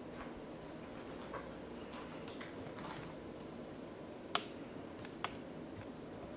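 Faint, scattered clicks of a Siberian husky's claws on a tiled floor as it walks around, with a sharper single click about four seconds in, and faint sniffing as it noses at a person's feet.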